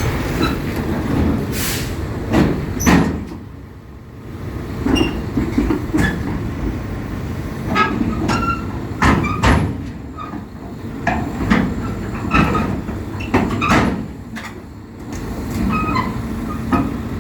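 Hidromek 230 LC crawler excavator on the move: a steady low engine sound with frequent irregular metallic clanks and squeaks from its steel tracks, easing off briefly twice.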